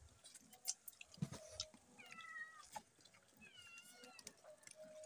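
Faint clicks and cracks of cooked crab shells being broken and picked apart by hand, with two short high animal calls, each falling in pitch and then levelling off, about two seconds and three and a half seconds in.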